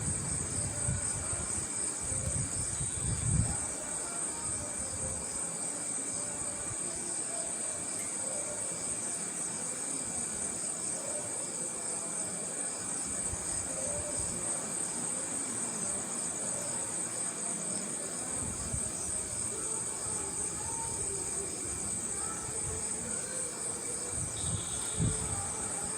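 Crickets chirping in a steady, high-pitched night chorus, with the low rumble of ocean surf beneath. The surf is stronger in the first few seconds and again through the last third.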